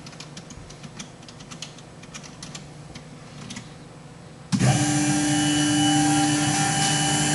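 Computer keyboard keys clicking as a move command is typed. About four and a half seconds in, a loud steady whine with several held tones starts suddenly: the Tormach PCNC 1100 mill's stepper motors driving the axes back to X0 Y0.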